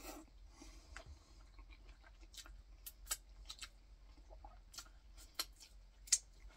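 Close-miked mouth sounds of eating: faint chewing with scattered wet clicks and smacks as seasoning is sucked off the fingers, the loudest about three seconds in and near the end.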